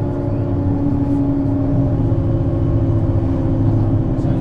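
Mercedes-Benz Citaro C2 city bus running steadily under way, a constant low engine drone with a steady hum above it; the pitch eases down slightly early on.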